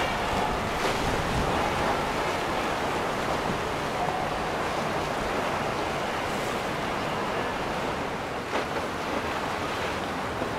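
Steady rushing of water and wind buffeting the microphone, with no clear engine note.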